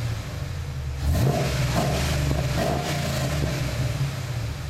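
Pickup truck engine running through OBX headers, Magnaflow catalytic converters and a true dual exhaust with Flowmaster Super 44 mufflers: a steady idle rumble with a quick rev about a second in and a couple of lighter throttle blips after it.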